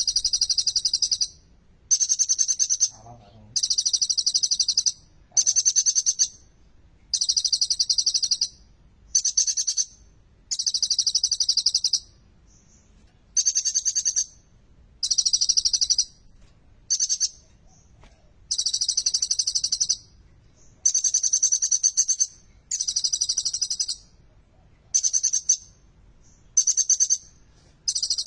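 A kolibri ninja sunbird singing in about a dozen bursts of rapid, high, chattering notes, each about a second long with short pauses between. This is the full song the bird is kept for, with phrases imitating the bar-winged prinia (ciblek).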